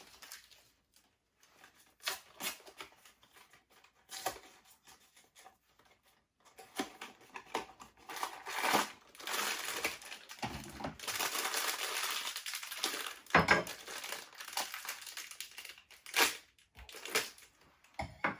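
Funko Mystery Mini blind-box packaging being opened by hand: at first scattered taps and small tears, then from about seven seconds in a long stretch of crinkling and crushing of the sealed foil bag, with a couple of sharp cracks near the end.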